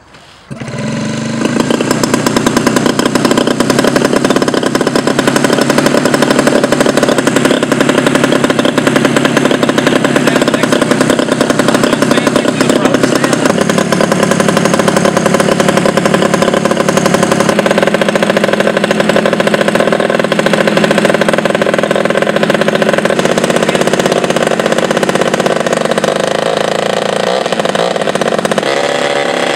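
Small aircraft engine on a test stand starting up about half a second in, then running steadily with a loud, rapid firing note. Its pitch steps down slightly a couple of times partway through.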